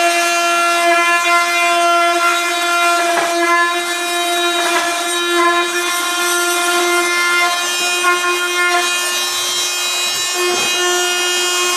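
Power drill running a hole saw that cuts through a plastic bucket: a steady, high motor whine with a scraping, rasping sound of the saw teeth in the plastic.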